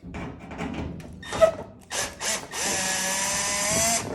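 Power drill driving out a sheet-metal ground screw from a dryer console: some rattling handling first, two short blips of the motor about two seconds in, then a steady run of about a second and a half with a slightly rising whine.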